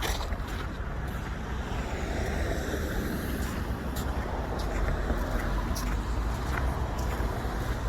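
Road traffic: a car's tyre and engine noise swelling and fading through the middle, over a steady urban hum, with occasional short crunches of footsteps in snow.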